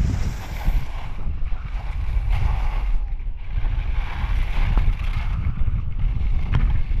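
Wind buffeting the microphone while skiing downhill: a heavy, continuous low rumble. Over it, a rushing hiss of skis on snow swells and fades several times.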